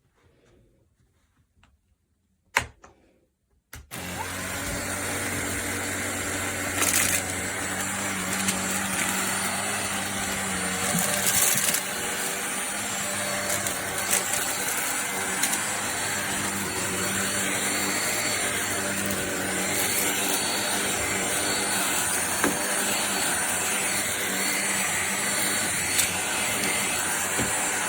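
Kenmore DS1020 16V cordless stick vacuum switched on with a click about four seconds in, then running steadily with a constant hum and a few brief louder rushes.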